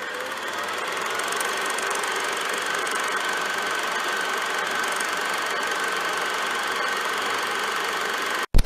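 A steady mechanical whirr with a high running tone and fast, fine ticking. Near the end it cuts out suddenly, followed by one loud thump.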